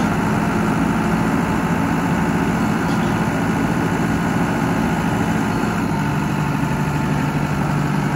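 Case IH Farmall 85C tractor's four-cylinder diesel engine running steadily while the L730 front loader is lowered. The engine note shifts slightly about six seconds in.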